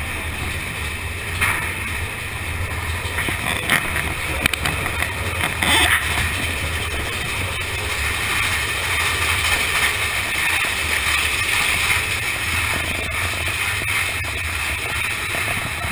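Big Thunder Mountain Railroad mine-train coaster running along its track, a steady rumble and rattle of the train heard from on board. A few sharp knocks come in the first several seconds.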